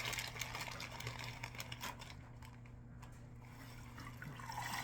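Dry navy beans being scooped by hand out of a plastic bag: crinkling plastic and many small clicks of beans knocking together, thinning out after about two seconds.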